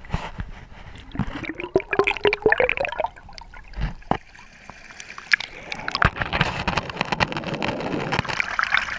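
River water splashing and gurgling, heard muffled through a GoPro's waterproof housing, with many sharp clicks and knocks and a rising pitched sound between about one and three seconds in.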